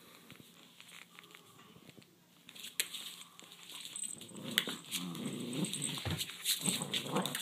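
Poodles growling in play while tussling over a toy, with scattered clicks and scuffles; the growling comes in and grows louder about four seconds in.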